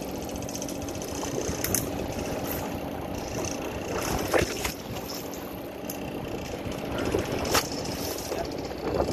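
Boat engine idling steadily, with splashing and a few sharp knocks as a hooked shark thrashes against the side of the hull.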